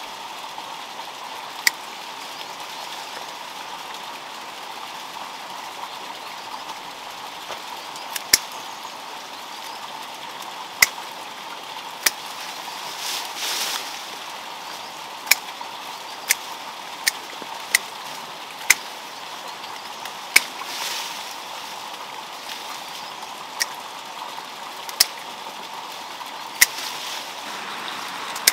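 Steady rushing of stream water, with a dozen or so sharp snipping clicks at irregular intervals as a plant is trimmed. There is a brief rustle about thirteen seconds in.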